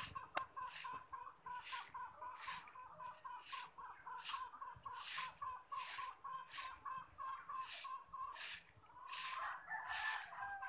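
Chickens clucking: short calls repeating about twice a second.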